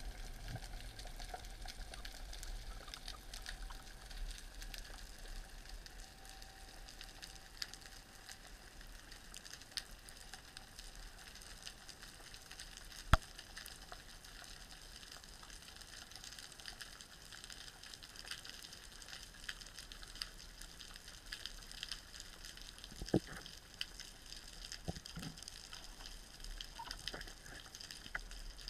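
Faint underwater ambience through a camera housing: a constant fizzing crackle of tiny clicks. One sharp click stands out about 13 seconds in, and a few dull knocks come near the end.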